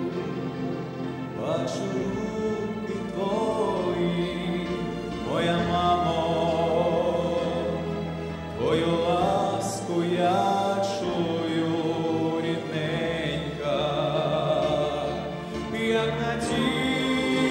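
A male vocalist singing through a microphone over instrumental accompaniment, with long held notes that waver in vibrato and several upward swoops into new phrases.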